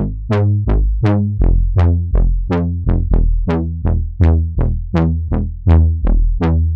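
Native Instruments Massive software synth bass line: repeated short notes, about three a second, stepping between a few low pitches. Each note starts bright and quickly turns dull as its upper overtones die away, and the last one fades out.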